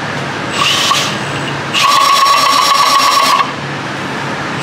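Ring and pinion gears in a GM 10-bolt 8.5-inch rear axle turning with load held on the ring gear, giving a steady whine in two runs, the second one longer. Under load the gears knock, which the mechanics take as a setup fault to correct by tightening the backlash.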